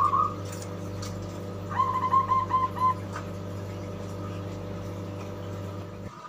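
Young caged zebra dove (perkutut) cooing: one clear note, then about a second and a half later a quick run of about six short repeated notes. A steady low hum runs underneath.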